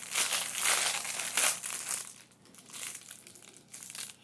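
Plastic wrapping crinkling as it is handled. It is loudest for about the first two seconds, then dies down to faint rustles.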